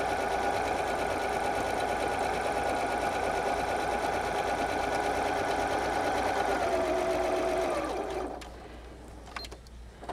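Janome computerized sewing machine sewing a straight stitch at a steady speed, changing pitch about seven seconds in and stopping about a second later. A few light clicks follow in the quieter stretch.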